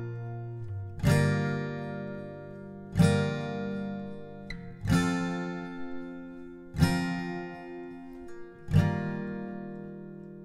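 Background music: slow strummed acoustic guitar chords, one about every two seconds, each left to ring out. The last chord fades away near the end.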